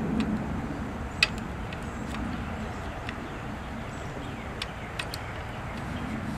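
Light metallic clicks and taps as the trigger-assembly parts of a Martini-Henry rifle action are handled and fitted, the sharpest about a second in, over a steady low background rumble.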